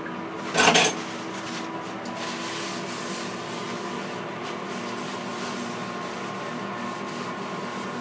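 Paper towel rubbing across a kitchen countertop in wiping strokes, over the steady hum of an air fryer oven's fan. A brief loud noise comes just under a second in.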